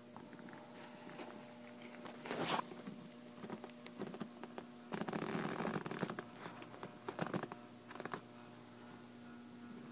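A cat's fur and face rubbing against the phone's microphone, giving a few scratchy rustling bursts: a sharp one about two and a half seconds in, a longer one around five to six seconds, and shorter ones near the end. A steady faint hum runs underneath.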